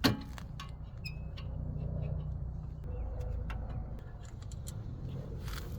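Scattered light clicks and taps of hand tools working on a rear brake caliper, over a low steady rumble.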